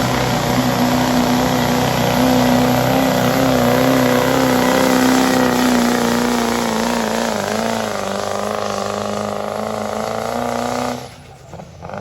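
Pulling truck's engine running hard at high revs under load during a pull, its pitch wavering and easing down slightly in the second half, then cutting off suddenly about eleven seconds in.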